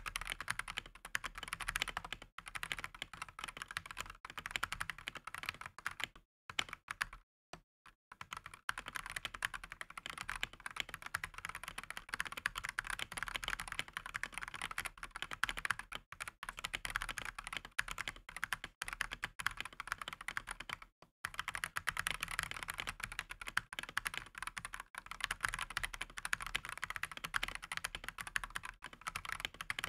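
Continuous typing on a stock Redragon K668 full-size mechanical keyboard with unlubed Outemu-style red linear switches and thin shine-through plastic keycaps: a dense run of key clacks with a few brief pauses, the longest about seven seconds in. It sounds clacky in a bad way, hollow and inconsistent, which the owner puts down to the thin shine-through keycaps and the unlubed switches.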